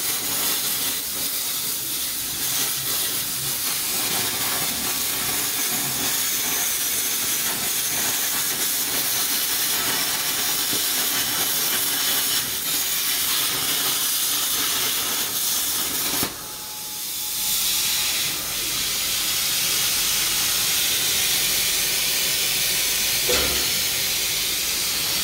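CNC plasma cutting table's torch cutting steel plate: a steady, loud, crackling hiss of the plasma arc. About two-thirds of the way through the arc cuts off suddenly, and a steady rush of air hiss carries on.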